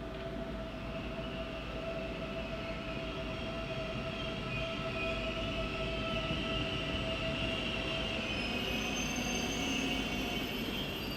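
Train running past on the rails, a steady running noise with a steady tone underneath and a high, wavering wheel squeal that grows louder toward the end.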